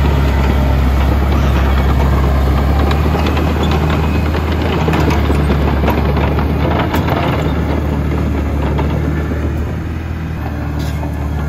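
Tracked heavy-equipment diesel engine running steadily with a deep, even hum, and a few faint clicks over it.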